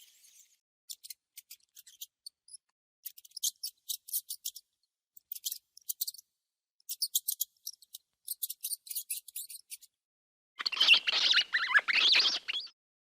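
Parrot making quick, sharp, high chirps in short bursts, then a louder, harsh squawk lasting about two seconds near the end.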